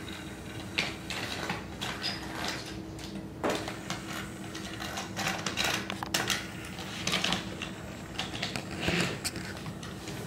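Plastic Thomas & Friends TrackMaster toy trains being pushed by hand along plastic track, giving irregular clicks, knocks and rattles, with a faint steady hum underneath.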